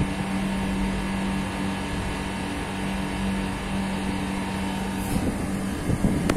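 A steady machine hum over the rush of wind on the microphone; the hum stops about five and a half seconds in.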